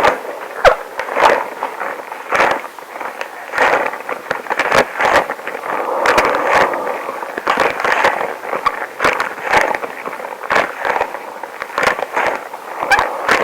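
Extra-long rubber gloves rubbing and squeaking close to the microphone, with a dense run of crackles and snaps and a short falling squeak about half a second in.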